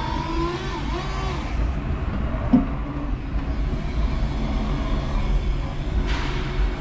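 Electric forklift driving with a load on its forks: the drive motor whines, its pitch dipping and rising again in the first second, over a steady low rumble. There is a single clunk a little over two and a half seconds in.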